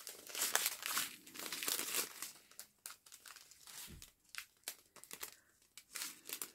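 Small clear plastic bags of diamond painting resin drills crinkling and rustling as they are handled, in irregular runs of sharp crackles.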